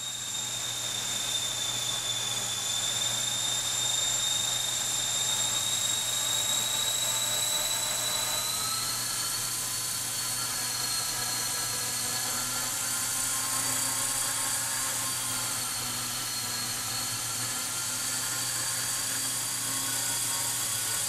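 A 450-size electric RC helicopter hovering: a steady high motor-and-gear whine over the whoosh of the rotor. The whine rises slightly in pitch about eight seconds in.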